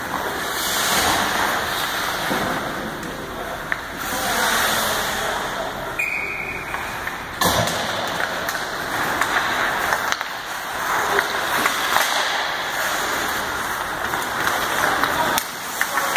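Ice hockey play on a rink: skate blades hissing and scraping on the ice, with sharp clacks of sticks and puck scattered throughout.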